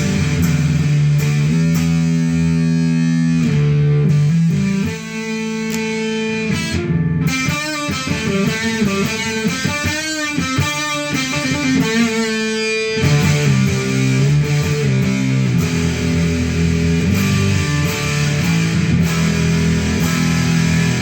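Kiesel electric guitar with humbuckers played through a homemade fuzz/distortion pedal built from a Fisher-Price 826 cassette player's amp circuit, starved to roughly 4 to 5 volts. It gives a loud, fuzzy, sustained tone: held chords, a middle stretch of bent, wavering notes, then chords again.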